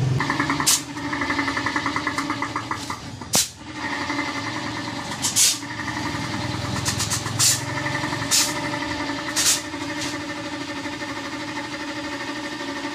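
Belt-driven air compressor running steadily, with about six short blasts of air hissing from the hose nozzle and one sharp click a few seconds in.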